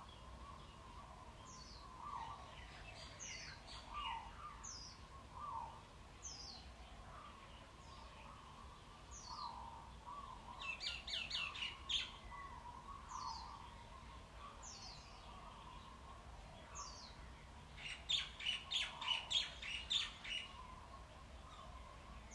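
Birds chirping: short high chirps that slide downward, repeating about once a second, with louder bursts of rapid chirping about eleven and eighteen seconds in.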